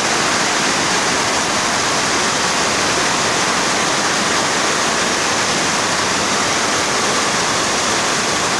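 Floodwater rushing in a fast, deep torrent down a street, a loud steady wash of water noise with no letup.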